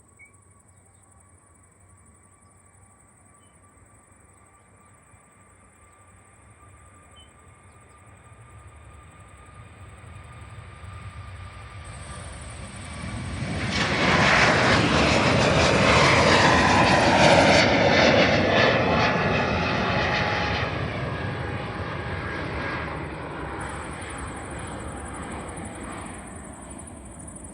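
Airliner's engines during takeoff. The engines start faint, build to a loud peak about halfway through as the aircraft passes, with a falling pitch, then fade as it climbs away.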